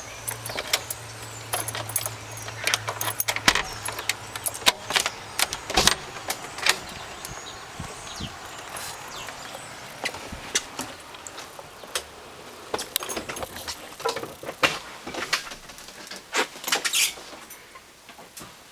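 Keys jangling and a door latch clicking as a house door is unlocked and pushed open: a long, irregular run of sharp clicks and jingles that thins out near the end.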